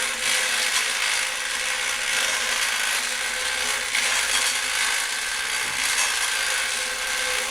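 CM Cyclone Model M 2-ton manual chain hoist being worked by its pull chain: the chain runs fast and rattles steadily through the hoist.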